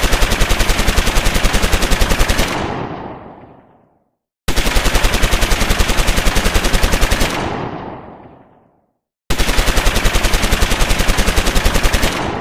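Machine-gun fire sound effect: three long bursts of rapid, evenly spaced shots, each lasting about two and a half seconds and then fading out in an echoing tail. The first burst is already under way at the start, the second begins about four and a half seconds in, and the third about nine seconds in.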